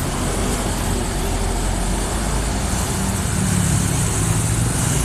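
Roadside traffic noise, with a vehicle engine's low drone building up from about three seconds in.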